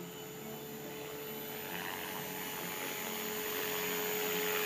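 Miniature Aircraft Furion 450 6S electric RC helicopter flying: its motor and rotors give a steady whine at one pitch over a rushing blade noise. The sound grows steadily louder as the helicopter comes in low and close.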